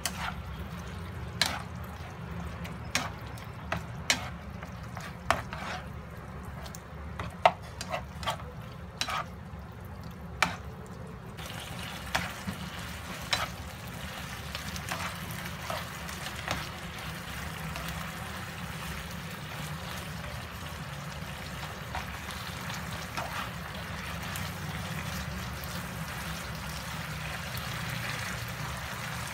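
Slotted spatula knocking and scraping against a nonstick frying pan as chicken pieces in a soy-sauce glaze are stir-fried, over the sizzle of the simmering sauce. The knocks come thick over the first ten seconds or so, then give way to a steady sizzle that grows slightly louder.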